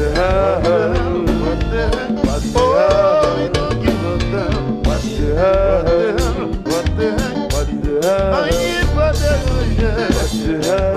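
Live konpa music: a male lead singer sings a melodic line over the band's bass and a steady drum beat.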